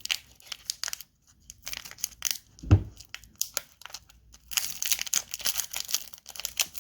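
Foil wrapper of a Pokémon trading-card booster pack being crinkled and torn at, a pack that is hard to open, in scattered sharp crackles. A dull thump about two and three-quarter seconds in is the loudest sound, and steady crinkling starts at about four and a half seconds.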